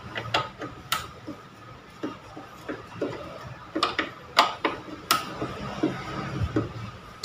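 Hand screwdriver tightening a screw into a particleboard desk frame: a string of irregular clicks and knocks, loudest about four to five seconds in.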